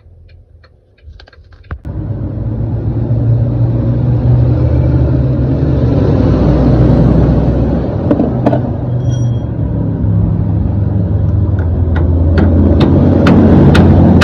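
Soft regular ticking, then about two seconds in a loud, steady diesel engine rumble starts and runs on at an even idle. Near the end, sharp clicks come faster and faster over it.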